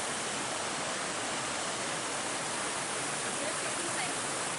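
Steady rush of water from a waterfall on a mountain stream, falling water in a constant even roar.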